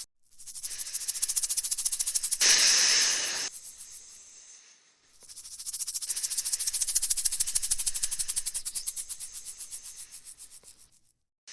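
Rattlesnake shaking its tail rattle: a fast, even buzz of clicks in two long runs with a short break near the middle, the second run fading out at the end. A loud hiss lasting about a second cuts in over the first run.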